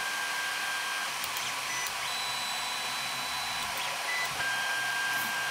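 Creality Ender 3D printer auto-homing: its cooling fans give a steady whirring hiss, while the stepper motors whine in steady tones that shift in pitch as each axis moves in turn, higher for a stretch in the middle.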